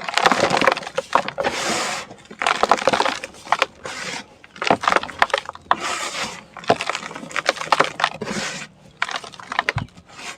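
Dry sand-and-cement chunks crumbling and crunching, in repeated bursts of gritty crackling with sharp little cracks and short pauses between them.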